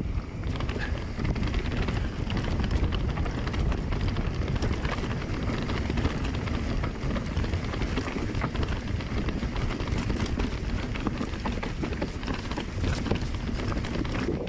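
Mountain bike ridden along a dirt trail: wind rumble on the microphone over tyre noise, with frequent small clacks and rattles from the bike.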